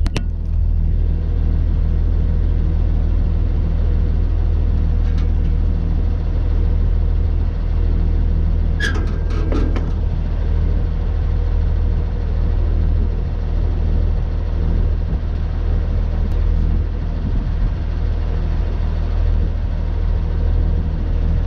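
Tractor engine running steadily close by, a constant low drone. A short cluster of knocks about nine seconds in.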